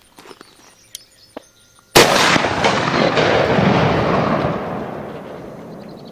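One very loud shot from a big-bore rifle about two seconds in, followed by a long rolling boom that slowly fades away over about four seconds.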